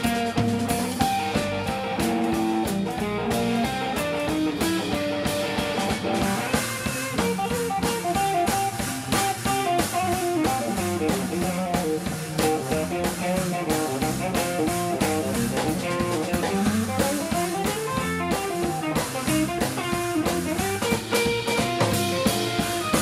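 Live blues trio jamming instrumentally: electric guitar playing melodic lead lines over electric bass and a drum kit keeping a steady beat.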